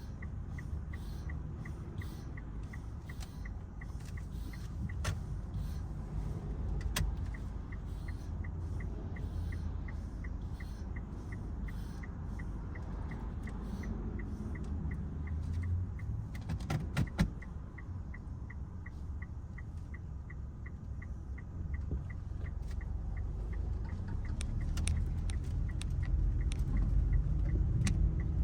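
Mitsubishi Outlander cabin sound while driving: a steady low engine and road rumble, with a light ticking about twice a second and a few sharp clicks about two-thirds of the way through. The rumble grows louder near the end as the car speeds up.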